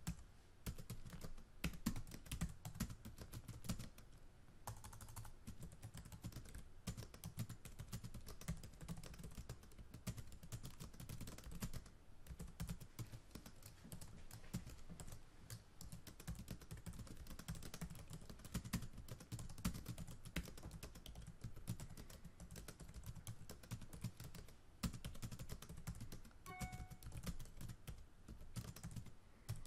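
Computer keyboard typing, a continuous rapid stream of key clicks. A brief beep sounds near the end.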